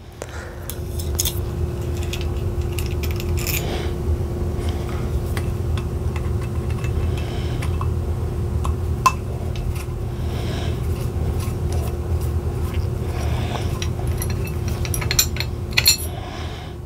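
Small metallic clicks and clinks of a hex driver backing out an air rifle's trigger guard screws, and of the loose screws and guard being handled, over a steady low hum.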